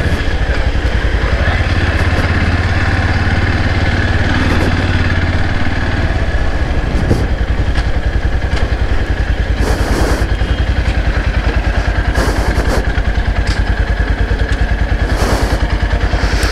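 Motorcycle engine running at low speed. About six seconds in, its steady firing pulses come through plainly, and a few short clattery noises sound near the middle and end.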